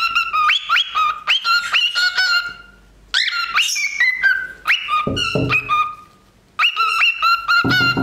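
Cockatiel making rapid, repeated chicken-like calls, each a short note that sweeps upward, in three bursts separated by brief pauses.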